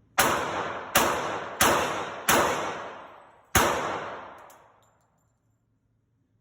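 Five gunshots, four in quick succession and a fifth after a short pause, each ringing out and fading over about a second.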